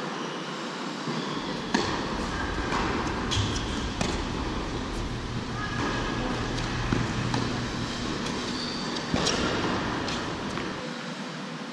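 Tennis ball struck back and forth by racquets in a rally: sharp single hits about every two to three seconds, over a steady low hum.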